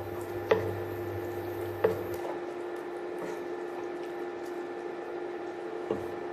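Wooden spatula stirring thick beef roast gravy in a nonstick pan: soft wet squelching with three sharp knocks of the spatula against the pan, about half a second in, near two seconds and near the end, over a steady background hum.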